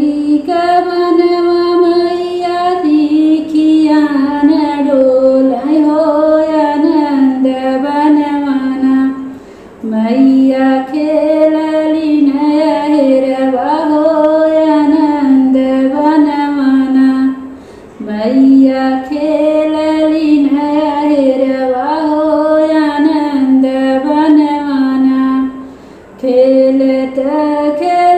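A woman singing a Bhojpuri pachra, a devotional song to the goddess sung at Navratri, solo and without accompaniment. She sings in long phrases with short breaks for breath about every eight seconds.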